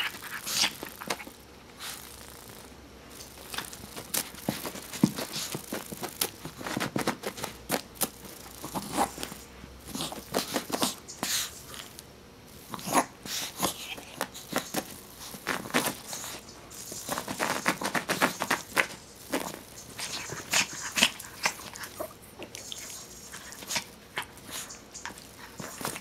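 A Miniature Pinscher pouncing on, pawing at and mouthing a cicada on carpet: irregular scuffs, taps and scratching noises that come and go in flurries.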